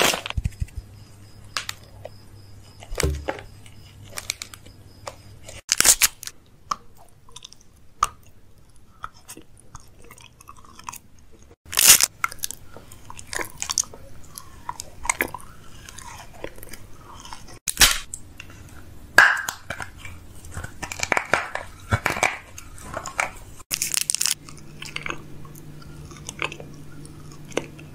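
Close-miked biting, crunching and chewing of chocolate and hard candy in a person's mouth, with a loud crunch about every six seconds and small wet clicks between.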